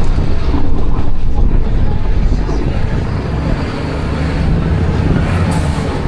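Bus engine and road noise: a steady low rumble, with a brief hiss near the end.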